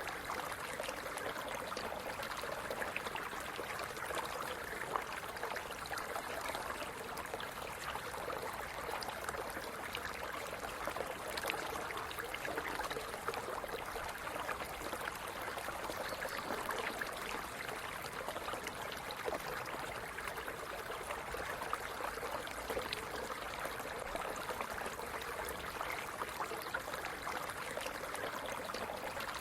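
A stream running steadily, water trickling and gurgling over stones, with many small splashes.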